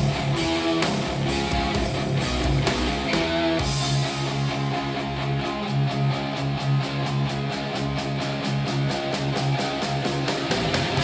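Rock music with guitar, played back through a small powered studio monitor and recorded in the room. A little under four seconds in, the bass drops away and a fast, even ticking carries the track, and the full band comes back near the end.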